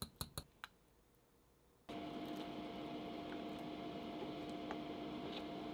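A quick run of six or seven light, ringing clinks of a utensil against cookware in the first half-second. After a short quiet, a steady hum with a low tone starts about two seconds in and carries on, with a couple of faint ticks.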